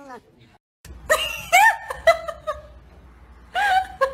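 The tail of a cat's meow falling in pitch, then after a brief gap a person laughing in short high-pitched bursts.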